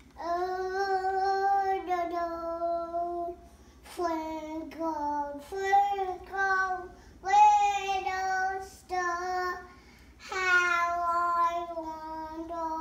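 A young child singing in long held notes, about six phrases with short breaths between them.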